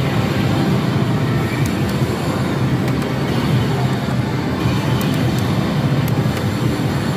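Loud, steady din of a pachislot parlour: many slot machines' music and effects blended into one continuous roar, with a few faint clicks.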